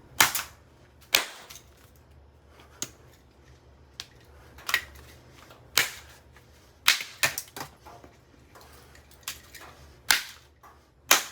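Plastic parts of a Revlon hair dryer being smashed: about a dozen sharp, irregularly spaced cracking blows.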